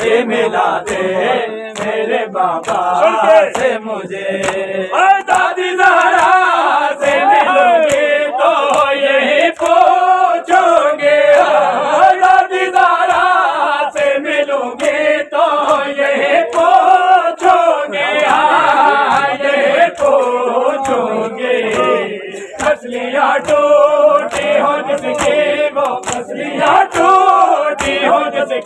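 A group of men chanting a noha in unison, with the rhythmic slaps of open hands beating on chests (matam) cutting through the singing.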